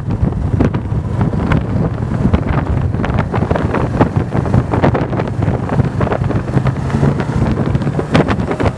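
Wind buffeting the microphone of a camera mounted on a moving motorcycle, over the steady drone of the bike's engine at cruising speed.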